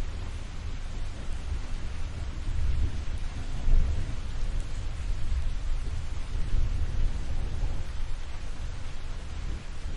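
Thunder of an approaching storm rumbling low over steady rain. The rumble swells to its loudest about four seconds in, then settles back.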